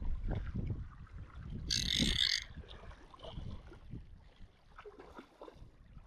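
Short high buzzing burst of a fly reel paying out line as a hooked bonefish runs, lasting under a second about two seconds in, over a steady low rumble of wind and water.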